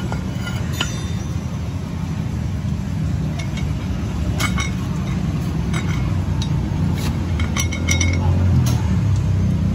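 Steel tool clinking and scraping against the inside of a wheel hub while old bearing parts are worked out. The clinks are scattered and sharp, each with a brief metallic ring.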